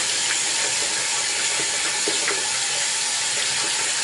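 Warm tap water running into a bathroom wash basin while hands rub and rinse a wet cloth diaper insert under the stream, giving a steady hiss with small splashes and squelches.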